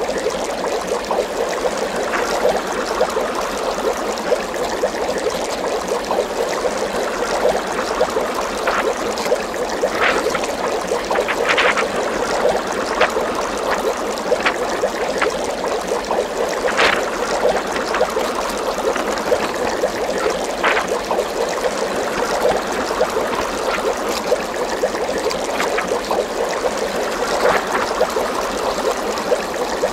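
Continuous trickling, bubbling water with a scattering of short, sharp drip-like plinks through the middle.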